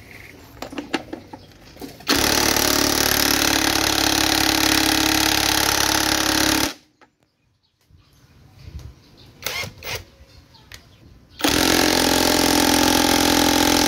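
DeWalt 20V cordless impact wrench hammering on a bolt of a manual transmission case, in two long bursts: one of about four and a half seconds, then after a pause of small clicks and tool handling, one of about two and a half seconds.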